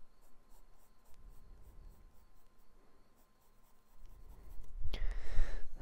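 Pencil scratching across sketchbook paper in short, light strokes. It turns louder, with heavier scratching and rubbing, in the last second or so.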